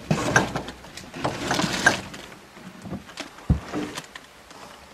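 A wooden door with a metal knob being handled and opened: rustling and scraping with scattered clicks, and a single low thump about three and a half seconds in.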